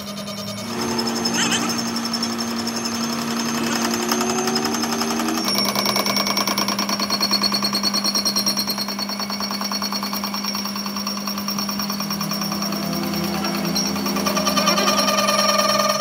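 Metal lathe running with a cutting tool facing the side of a large steel gear: a steady hum with a rapid rattle of the cut, its tone stepping slightly about five seconds in.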